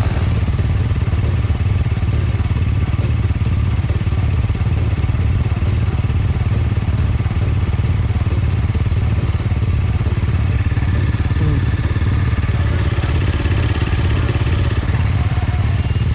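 Enduro dirt bike engine running steadily as it is ridden along an off-road trail, a loud continuous low rumble.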